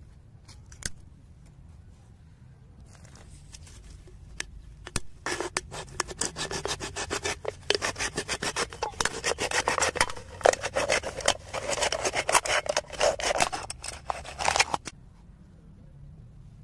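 A knife blade scraped rapidly back and forth against an aluminium drink can, a dense run of rasping strokes starting about five seconds in and stopping shortly before the end. A few isolated clicks come before it.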